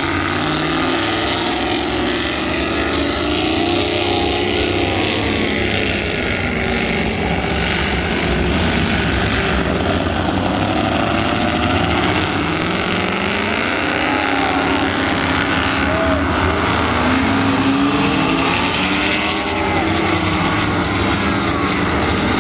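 Offshore racing powerboats accelerating hard past one after another, their loud engine notes rising and falling as each goes by. Beneath them runs a steady rush of wake and spray.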